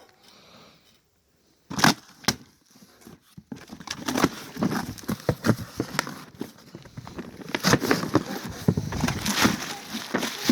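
Packaging being handled and opened: crackling and rustling with many sharp clicks, starting after a near-silent pause broken by one sharp click.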